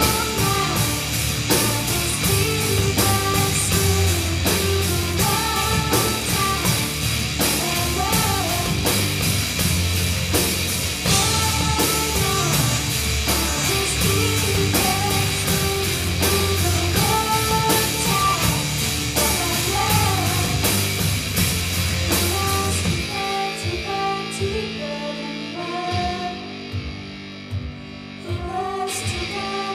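Live rock band playing: drum kit, bass and electric guitar with a woman singing. About 23 seconds in, the drums and bass drop out, leaving a quieter passage, and the drums come back in near the end.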